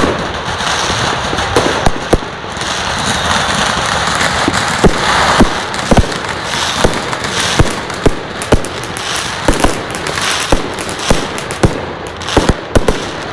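Fireworks going off: a steady crackle and hiss with many sharp bangs and pops, several a second at times.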